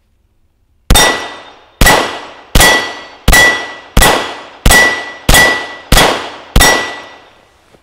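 Nine pistol shots from a CZ 38 .380 ACP handgun, fired at a steady pace about two-thirds of a second apart. Each shot is followed by the high, fading ring of a struck steel plate target.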